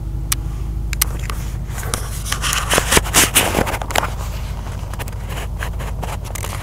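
A 2006 Mustang GT's 4.6-litre V8 running at low revs through a Pypes off-road X-pipe and Magnaflow axle-back mufflers, a steady low rumble heard inside the car's cabin. Over it come clicks and a cluster of scraping knocks from the camera being handled, loudest about three seconds in.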